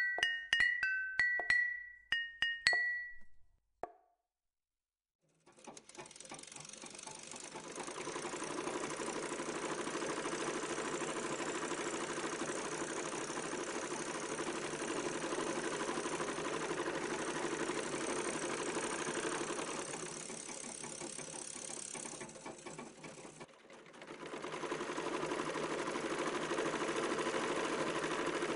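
Tinkling chime-like notes for about three seconds, then a short silence, then the steady rattling hum of sewing machines running, as in a garment workshop. The hum dips for a few seconds about two-thirds of the way in and picks up again.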